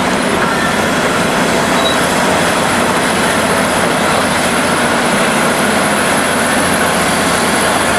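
Loud, steady heavy-vehicle noise, an even mechanical rumble and hiss, laid in as a bulldozer sound effect.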